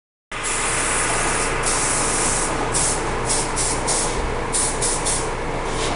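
Aerosol hairspray (Moroccanoil Luminous Hairspray) hissing from the can onto hair: one long spray of about a second, then a quick series of short spurts, over a steady hum.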